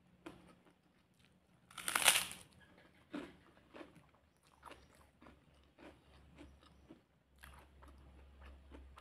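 Biting into a large fried cracker (kerupuk): one loud crisp crunch about two seconds in, followed by repeated crunching as the mouthful is chewed.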